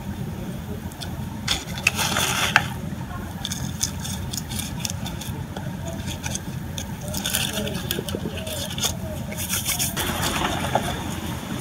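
Hands scraping and pressing loose potting soil around a succulent in a small pot, in several short rustling, scratchy bursts over a steady low hum.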